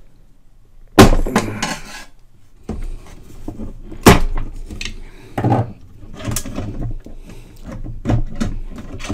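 Garrard 202A phonograph motor being lifted off and handled over its motor plate: a series of clunks and knocks, the loudest about one and four seconds in, with handling and rubbing noise between.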